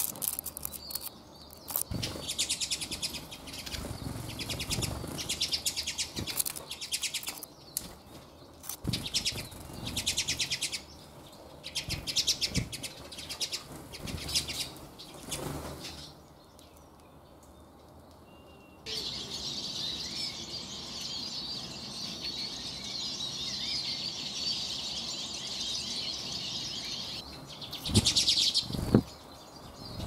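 Eurasian siskins and common redpolls flitting on and off a hand, in short bursts of fast whirring wingbeats. A stretch of continuous high twittering runs through the second half, and there are two low thumps near the end.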